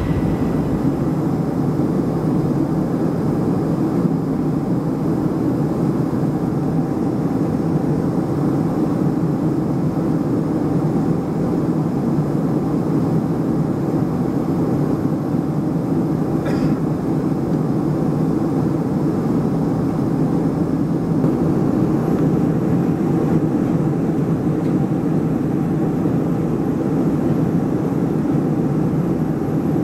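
Steady cabin noise of a Boeing 737-300 airliner at the start of its descent, heard from a window seat beside the CFM56-3 turbofan: an even low engine hum mixed with the rush of air past the fuselage.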